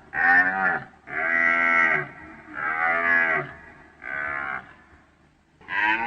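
Deer calling over and over: four pitched calls of about half a second to a second each, with a fifth starting near the end.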